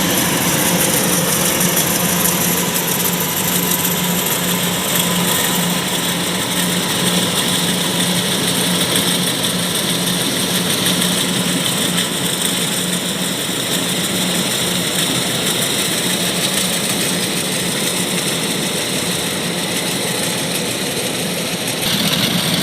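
Kubota DC-105X combine harvester's diesel engine running steadily: an even low hum with a dense hiss of machinery above it.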